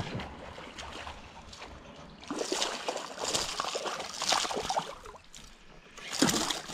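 Water sloshing and splashing in irregular bursts, quieter for the first two seconds and then busier, with another burst near the end.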